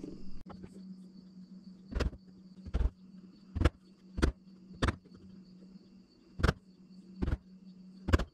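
Carving gouge knocking into a cherry spoon blank to clear wood from the bowl: about eight sharp knocks spaced irregularly, roughly a second apart.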